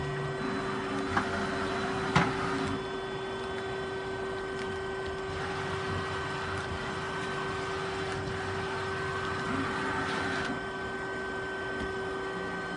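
Daewoo Puma 150G CNC gang lathe's axis drives moving the tool slide on rapid, with a steady hum and a servo-and-ball-screw whir that stops about three seconds in and runs again until about two seconds before the end. Two sharp clicks come about a second apart near the start, the second the loudest. The ball screws sound very healthy.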